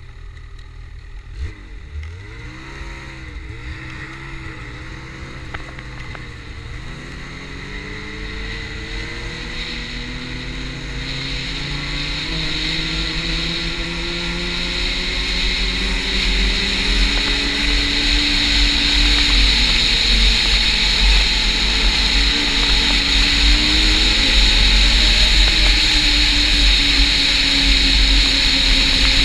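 Snowmobile engine pulling away from a stop and accelerating along a groomed snow trail, its pitch climbing over the first ten seconds or so, then running at cruising speed with small rises and dips. A hiss of track and wind grows louder as speed builds.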